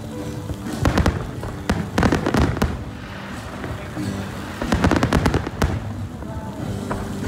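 Aerial fireworks bursting overhead: clusters of bangs and crackles about a second in, around two seconds, and again near five seconds, over background music with held notes.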